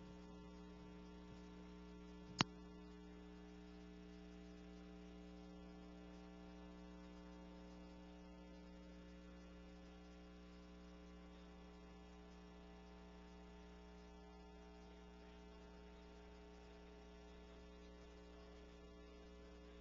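Near silence with a steady electrical hum, and a single sharp click about two seconds in.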